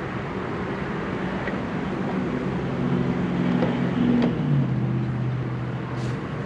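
Variable-speed power drill running slowly for about four seconds, driving a tail-lamp 10 mm nut snug. Its motor tone steps lower partway through, with a few light clicks.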